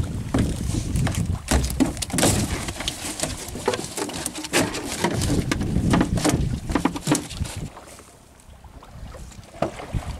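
Rapid, irregular knocks and thumps of a freshly landed sailfish thrashing against a small boat's deck and hull, dying down about eight seconds in.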